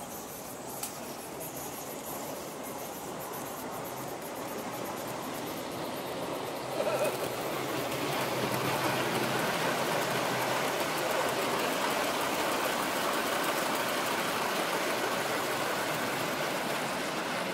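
Gauge 1 garden model train rolling along the track, a steady clattering rumble of small wheels on rail. The sound swells about seven seconds in, with a brief knock, as a train of mineral wagons comes through.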